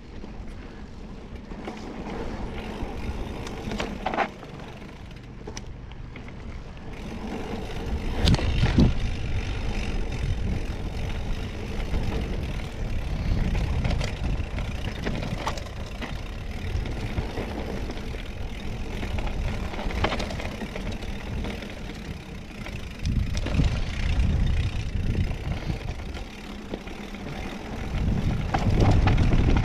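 Mountain bike riding down a rough trail: a steady rumble of wind on the microphone and tyres on dirt and rock, with scattered knocks and rattles from the bike over bumps. It gets louder about eight seconds in.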